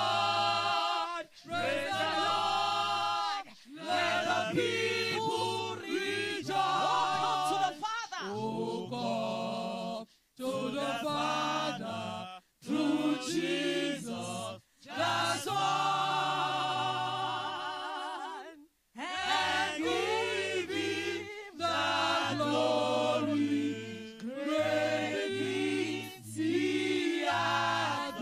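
Church choir singing a praise song together through microphones, phrase after phrase with short breaks between them.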